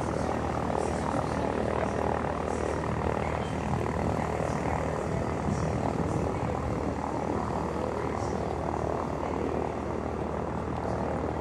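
Airbus A400M Atlas turboprops in flight, its four Europrop TP400 engines and eight-bladed propellers giving a steady, heavy drone with a low hum under it.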